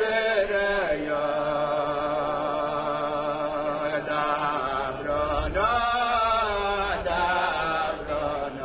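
A voice chanting a slow Jewish liturgical melody, holding long notes with a wavering vibrato and sliding between pitches near the start and again about five and a half seconds in.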